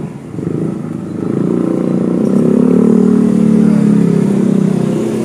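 A motorcycle engine running close by, growing louder to a peak about three to four seconds in and then easing off, like a motorcycle passing.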